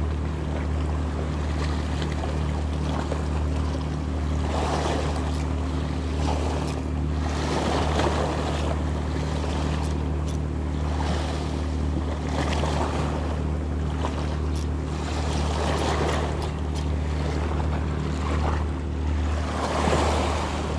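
Sea waves washing and splashing against a rocky shore in repeated surges every second or two, over a steady low hum.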